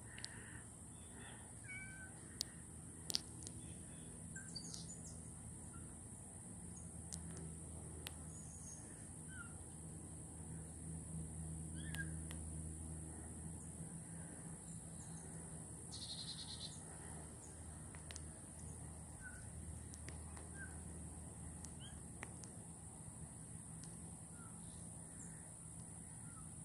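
Short, faint cat meows now and then, from cats up a tree where a kitten is stuck, over a steady low hum.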